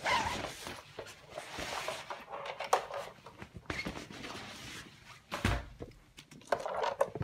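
Cardboard shipping box and its packaging being handled: bursts of scraping and rustling with a few clicks and a knock about five and a half seconds in.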